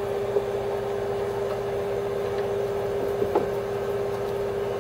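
Steady machine hum holding one constant tone, with a faint tick or two.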